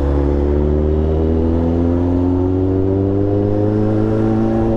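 Motorcycle engine running under steady throttle, its pitch rising slowly and evenly as the bike accelerates.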